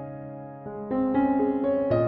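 Soft background piano music: held notes fade away, then a new phrase of single notes begins a little over half a second in.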